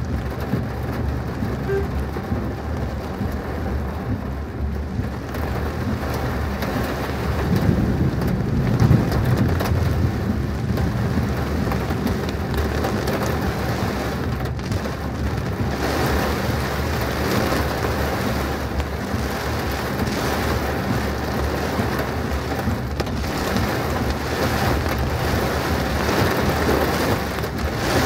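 Heavy rain falling on a car as it drives, over a steady low hum from the vehicle. A deeper rumble swells about eight to ten seconds in, and the rain turns hissier from about halfway through.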